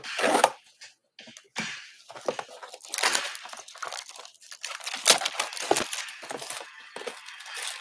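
Plastic shrink wrap being slit and peeled off a trading-card box: irregular crinkling and tearing of thin cellophane.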